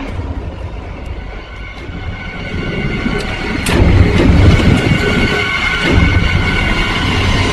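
Loud low rumble that swells about three and a half seconds in and stays heavy, with steady high screeching tones held over it: a haunted-house sound effect with a train-like rumble.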